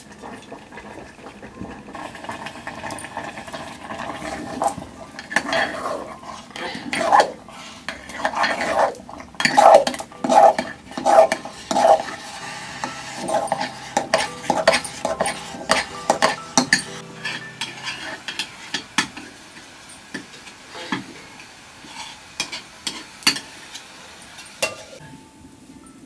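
Steel dishes clinking, then a flat metal paddle stirring and scraping thick corn-flour aato in a steel pot, in quick repeated strokes with knocks of metal on metal.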